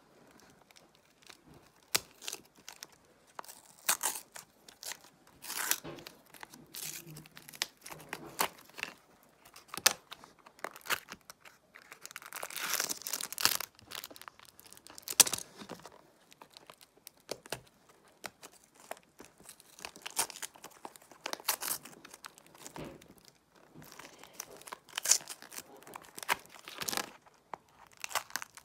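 Small cardboard toy boxes being torn open by hand and their wrappers crinkled, in irregular bursts with sharp snaps. A longer stretch of tearing comes near the middle.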